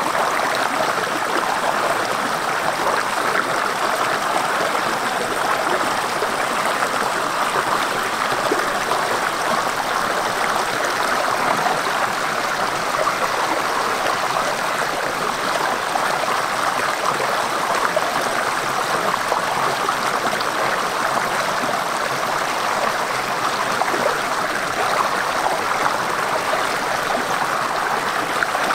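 Steady rushing of flowing water, like a stream running over stones, with an even level throughout.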